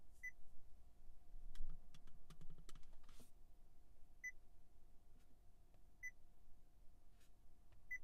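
Short, high touch-confirmation beeps from a 2019 Honda Clarity's infotainment touchscreen, one for each tap on the screen: four beeps, irregularly spaced. A run of light clicks comes between the first and second beeps.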